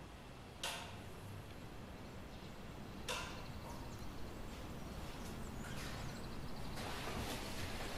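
Faint scuffs of slippered footsteps on a wooden floor, spaced a second or more apart, over a low steady room hum, with a faint high rapid trill twice.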